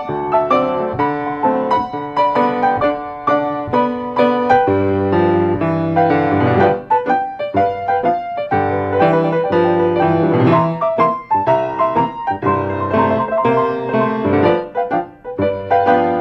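Piano music: a piano playing a melody over chords, with notes changing quickly.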